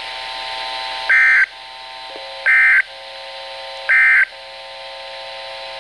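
Emergency Alert System end-of-message data burst: three identical shrill digital warbles, about a third of a second each and roughly a second and a half apart, that close the broadcast alert. A quieter steady buzzing tone runs between the bursts.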